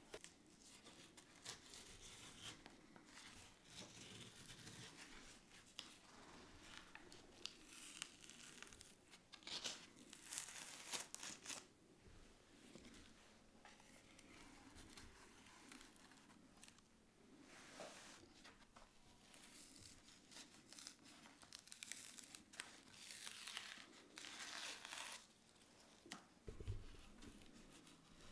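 Quiet, intermittent paper tearing and scraping as a thin spatula is worked between the layers of a flood-damaged watercolor paper, peeling them apart in short bursts. The layers come away easily because the adhesive holding them together has failed.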